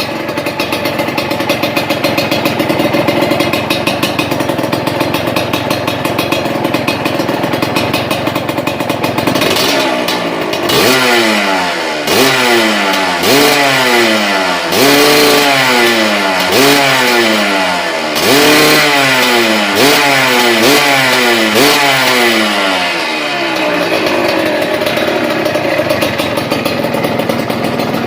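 Suzuki TS125's single-cylinder two-stroke engine through a Triton RS-5 stainless aftermarket exhaust, idling, then blipped through about ten quick revs in a row before settling back to idle near the end.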